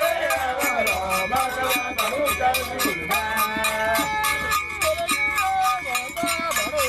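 Traditional West African music: a steady beat struck on a metal bell like a cowbell, under a melody of long held notes that slide from one pitch to the next.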